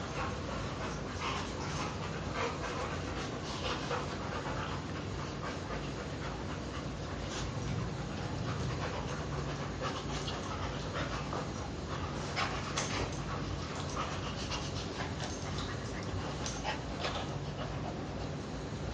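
Dogs panting steadily during play, with scattered light clicks throughout.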